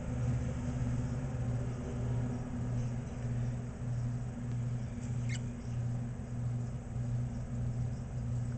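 A steady low mechanical hum that dips in a regular pulse about every two-thirds of a second, with one brief high squeak about five seconds in.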